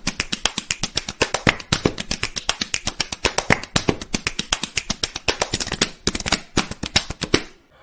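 Close-up mouth sounds of someone eating crispy fried chicken: a rapid, uneven run of sharp crunches and wet clicks, several a second, that stops suddenly near the end.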